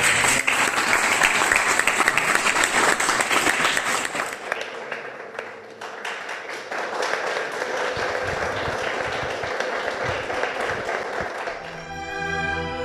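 Audience applauding, a dense clatter of many hands, strongest for the first few seconds and lighter after about four seconds. Music comes in near the end.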